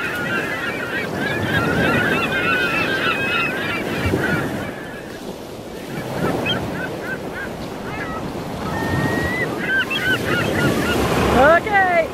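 A flock of birds calling with many short chattering calls, densest in the first few seconds and thinning out midway, with a few longer sweeping calls near the end. Wind rumbles on the microphone underneath.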